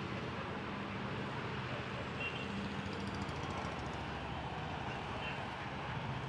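Steady road traffic noise: a hum of engines and tyres, with motorcycles passing on the street.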